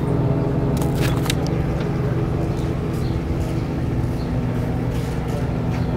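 A steady low engine hum with constant pitch, from a motor running at idle. There are a few faint knocks about a second in.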